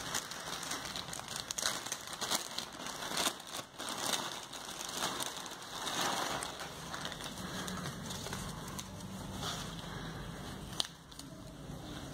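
Clear plastic polybag crinkling and rustling in uneven bursts as hands open it and pull out a pair of shorts, with one sharp click near the end.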